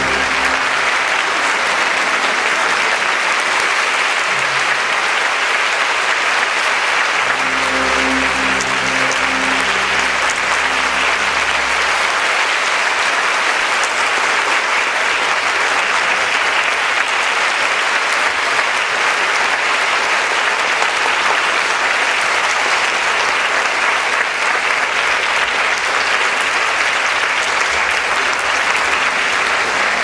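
Large audience applauding steadily, an even wash of clapping.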